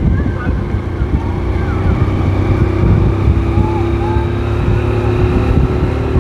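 Vehicle engine and road rumble heard from a moving vehicle, steady throughout, with a hum that grows stronger about halfway through and faint voices in the background.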